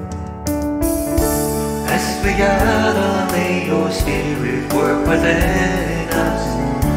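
Worship song sung over instrumental accompaniment.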